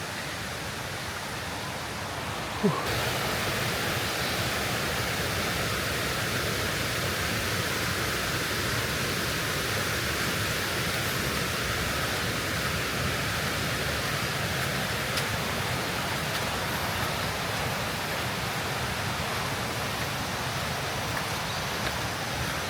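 Steady rushing water, an even hiss with no break. A little under three seconds in it steps up suddenly, louder and brighter, then holds steady.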